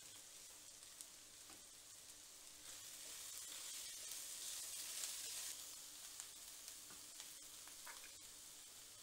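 Chopped onions frying in oil in a steel pan with a soft, steady sizzle that grows louder for a couple of seconds in the middle while they are stirred with a spatula. A few light clicks of the spatula against the pan.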